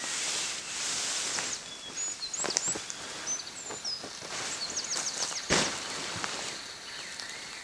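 A tarp rustling as it is lifted and pulled into shape, with footsteps and knocks in dry leaf litter. Birds chirp now and then, with a quick trill about five seconds in.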